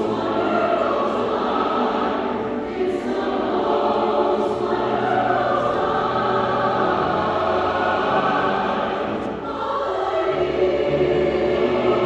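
A choir singing held chords in several parts, with a dip and a change of chord about nine and a half seconds in.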